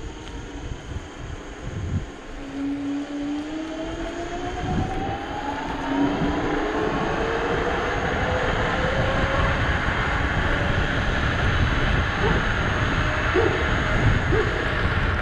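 Dualtron Thunder electric scooter's hub motors whining, the pitch rising as the scooter accelerates. Wind and tyre rush grow louder from about six seconds in as the speed builds.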